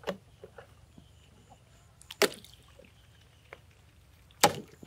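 Plastic-bottle fishing traps thrown into a pond, landing in the water with three sharp splashes about two seconds apart, the last one loudest.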